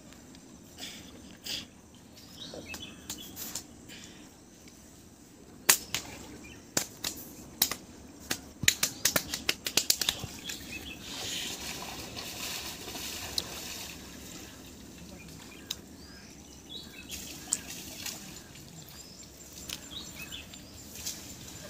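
Quiet waterside ambience with faint bird chirps, and a quick run of sharp clicks and taps about six to ten seconds in.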